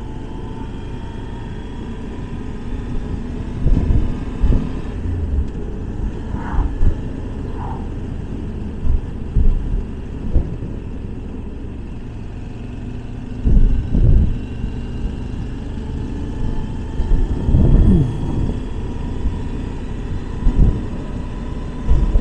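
Motorcycle riding along with its engine running steadily under road and wind noise, and low thumps of wind buffeting the microphone every few seconds.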